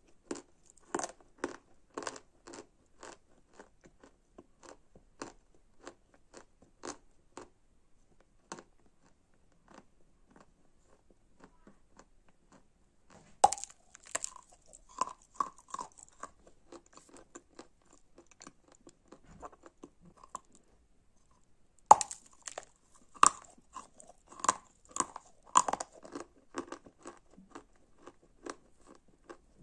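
A lump of Kursk chalk being bitten and chewed close to the microphone, crunching dry and breaking at once into small crunchy bits. Two sharp bites come, about a third of the way in and about three-quarters of the way through, each followed by a run of quick crunchy chews; between them the chewing slows and fades.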